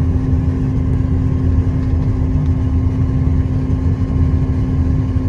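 Combine harvester's diesel engine running steadily as it drives: a constant low drone with a steady hum above it.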